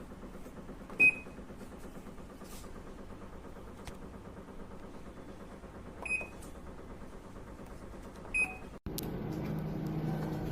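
Midea MA100W85 top-load washing machine's control panel giving three short single beeps, about a second, six seconds and eight and a half seconds in, over a steady low hum. Near the end a louder steady noise takes over.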